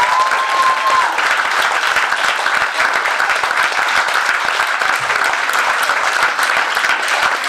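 Small comedy-club audience applauding steadily, with one held high tone over the first second.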